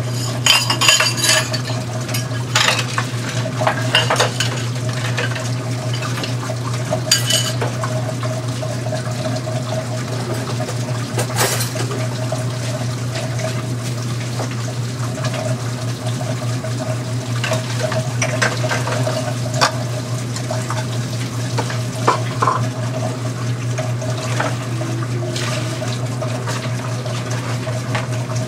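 Dishes and cutlery clattering in a stainless-steel kitchen sink, with water running, over a steady low hum. The clatters come in bunches: several in the first few seconds, a couple more in the middle, and another run later on.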